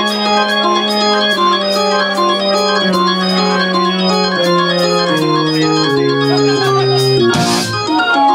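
Live band's keyboard playing an organ sound: long held chords over a bass note that steps down every second or so. A cymbal crash comes in near the end.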